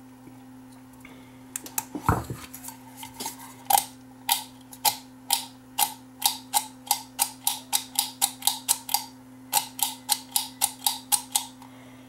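Four-position ceiling-fan pull-chain speed switch being cycled by tugging its ball chain: a quick, regular run of sharp clicks, about three a second, as the switch steps through its positions.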